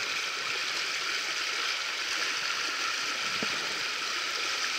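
Steady rush of river rapids, an even hiss of fast-flowing water.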